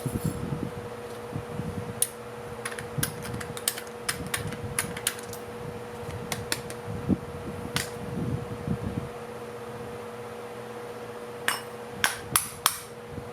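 Sharp metallic clicks and taps of small carburetor parts being handled and set down on a bench. They come in clusters in the first few seconds, once near the middle and several near the end, over a steady hum.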